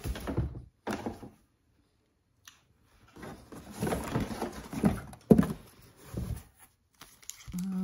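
Rustling and knocking of craft items being handled and pulled from a cardboard box, in two spells with a short quiet gap between them and one sharp knock about five seconds in.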